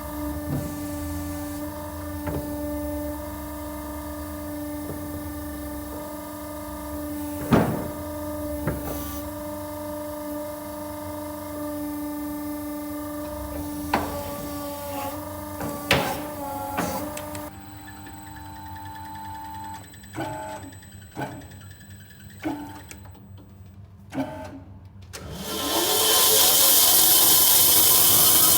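Sawmill machinery: a steady motor hum with a few sharp clunks, then a quieter stretch with scattered knocks. About 25 seconds in, a motor spins up with a rising whine and runs loudly to the end.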